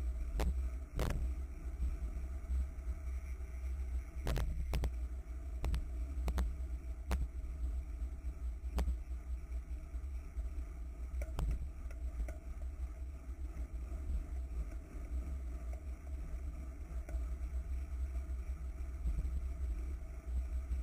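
Wind rumbling on the microphone of a camera mounted on a racing bicycle at speed, with scattered sharp clicks, most of them in the first half.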